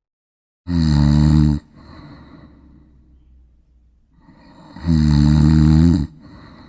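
A person snoring loudly: two long, loud snores about four seconds apart, each lasting about a second, with softer breathing between them.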